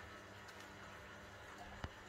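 Near silence: faint room tone with a low steady hum, and a single faint click near the end.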